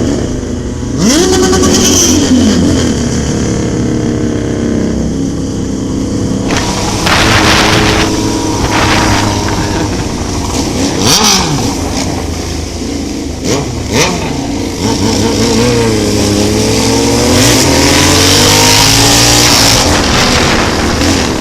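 Yamaha XJ6 inline-four motorcycle with an aftermarket exhaust pipe revving and accelerating close by, its engine note rising and falling several times, with a long rising rev near the end, over road and wind noise.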